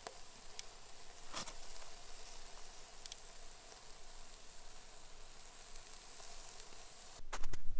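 Spare ribs sizzling on a small portable grill: a steady hiss with a few faint pops. Near the end, footsteps begin crunching in snow.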